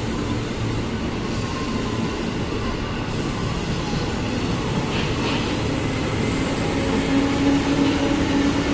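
JR 203 series electric commuter train moving slowly past the platform: steady running noise with a hum that grows stronger and a little louder near the end.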